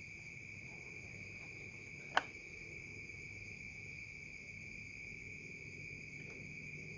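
Steady high-pitched trilling of insects, with a single sharp click about two seconds in.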